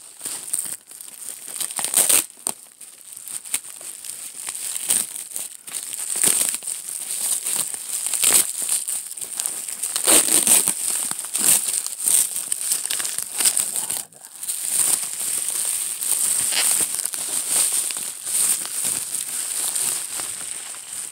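Packaging wrap being crinkled and torn open by hand: a long, irregular run of crackling and rustling as an item is unwrapped, with a short lull about two-thirds of the way in.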